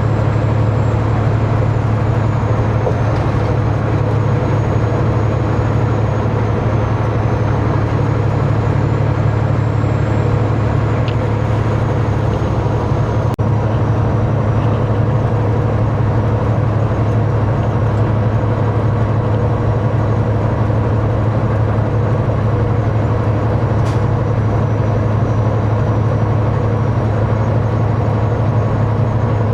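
Peterbilt 389 glider semi truck cruising on the highway, heard from inside the cab: a steady low engine drone mixed with road noise.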